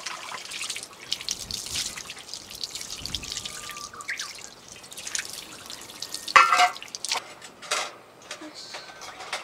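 Water running from a hose into an outdoor concrete sink, splashing and dripping as dishes are rinsed under it. One louder knock about six seconds in.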